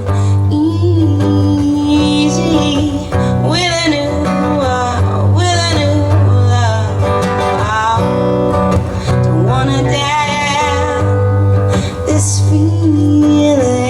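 Live band playing a slow country-blues song: acoustic guitar and bass under a melody line that slides between notes.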